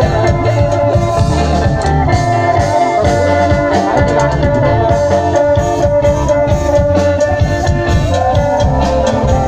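Loud amplified live band music, electric bass guitar and drums with a held melody over a steady beat, played through a cart-mounted loudspeaker stack.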